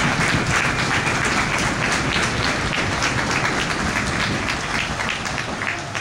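Crowd applauding, dense at first, then thinning to scattered separate claps and fading near the end.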